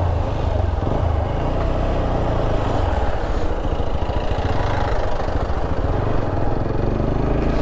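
TVS Apache RTR 160 4V's single-cylinder engine running steadily while the motorcycle is ridden, its firing pulses heard under road noise.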